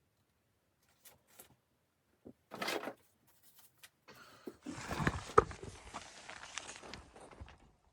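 A few faint clicks and a short rustle, then from about five seconds in continuous rustling and crunching with scattered sharp knocks that cuts off suddenly at the end.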